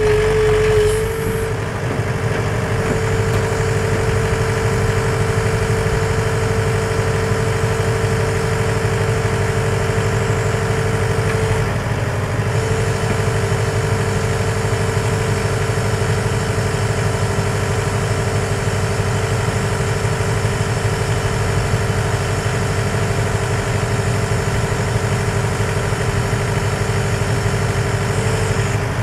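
Komatsu PC75UU mini excavator's four-cylinder diesel engine running steadily while the boom and arm are worked, with a steady whine over it that breaks off briefly about twelve seconds in.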